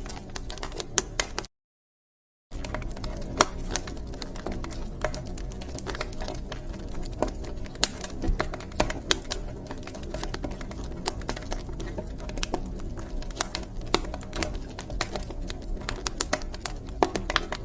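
Wood fire crackling in a fireplace: irregular sharp pops and snaps over a low steady rumble. The sound cuts out completely for about a second, about one and a half seconds in.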